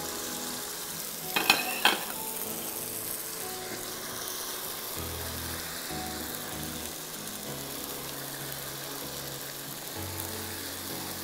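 Mutton chops and chicken pieces sizzling in reshmi sauce in a karahi as they are stirred with a wooden spoon, with a couple of brief clinks about a second and a half in. Faint background music runs underneath.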